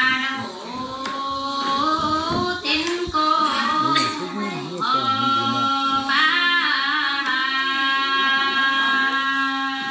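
A woman singing a traditional Vietnamese call-and-response folk song (hát đối đáp), with pitch bends and long held notes.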